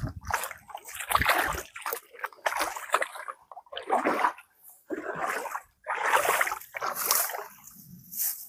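Hands splashing and scooping in shallow muddy water while digging into a crab burrow in a stream bank: irregular splashes, about one a second, with short gaps between them.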